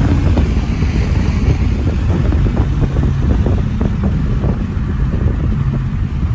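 Car engine and road noise, a loud low rumble, with wind buffeting the microphone.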